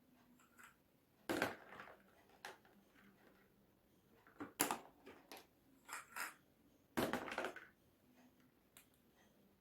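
Balls from a hand-eye coordination game hitting a board and landing: a series of sharp knocks a second or two apart, some followed by a brief rattle. The loudest come about a second in and about seven seconds in.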